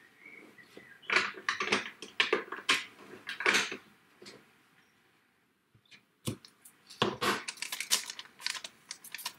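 Clear stamps being peeled off and handled on their flexible plastic carrier sheet: quick crinkling clicks of the plastic, in two spells with a pause of about two seconds in the middle.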